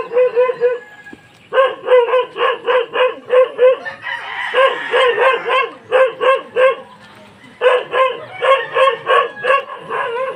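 A dog barking in fast, repeated yaps, about four or five a second, in runs of a few seconds separated by short pauses.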